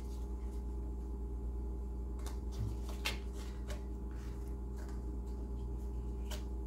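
Steady low room hum with a few light, sharp clicks and taps of tarot cards being handled.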